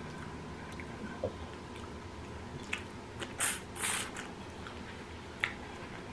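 Someone eating: wet squishes and smacks of chewing, with a few short bursts, the loudest twice in the middle.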